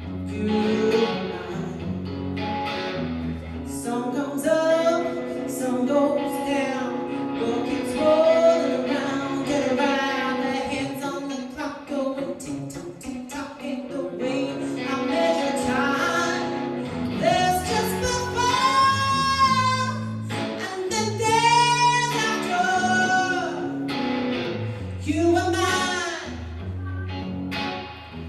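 A woman singing a song to guitar accompaniment, with a wavering vibrato on the long held notes about two-thirds of the way through.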